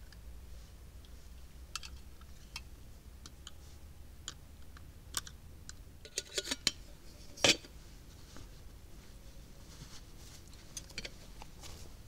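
Scattered small clicks and light knocks of a portable camping gas stove and a butane canister being handled and fitted together, with a short cluster of clicks and then one sharp, louder click about seven and a half seconds in.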